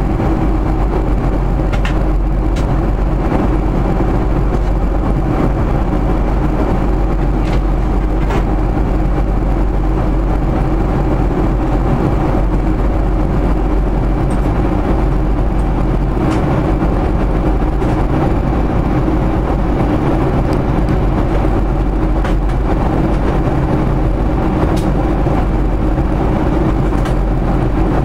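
Steady in-flight cabin noise of a Boeing 737-400 airliner: an even roar of engines and rushing air with a low drone and a faint steady whine, unchanging throughout.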